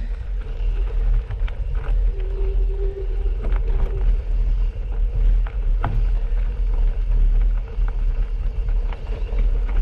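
Wind buffeting the microphone while riding a bicycle on a gravel track, heard as a heavy, uneven low rumble. Scattered sharp clicks and rattles come through it, from the bike and the gravel under the tyres.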